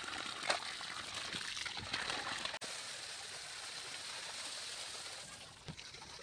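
Water gushing out of a flexible pipe and splashing onto the ground in a steady rush. It breaks off for an instant about two and a half seconds in and fades near the end.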